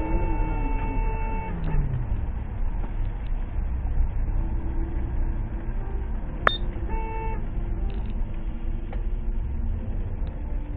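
Car horn sounding over steady road and engine rumble heard from inside a car: one long blast at the start and a short one about seven seconds in, with a sharp click just before the second.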